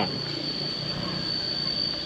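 Crickets chirring in a steady high-pitched drone over a low background rumble.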